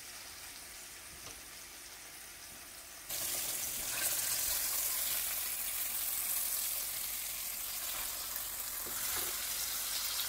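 Flour-breaded chuck roast searing in hot grease in a skillet with sliced onions: a steady sizzle that gets suddenly louder about three seconds in.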